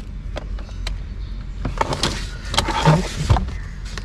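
Handling noises as a USB pen drive is fitted into an adapter on a cable: scattered small clicks and a couple of short rustles, over a steady low hum.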